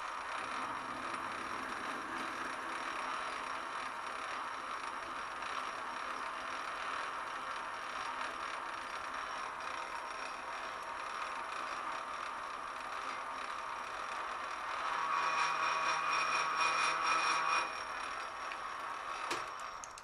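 Metal lathe running at about 200 RPM while a parting tool cuts into the spinning workpiece. From about 15 to 18 seconds in the noise grows louder and carries a steady pitched tone, then drops back; a single click comes near the end.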